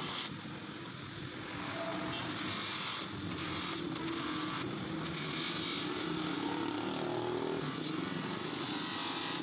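Electric bench polisher motor running steadily, its spinning foam buffing pad pressed against a plastic headlight lens to polish it.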